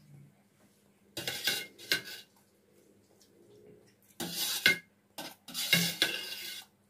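Metal spoon scraping and clinking across a large stainless steel plate, scooping up scattered grains of rice, in several short scrapes with pauses between them.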